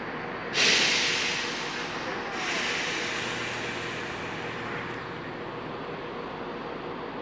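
Two sudden hisses of compressed air venting from a train's air brakes. The first, and louder, comes about half a second in; the second follows under two seconds later. Each fades away over a second or more.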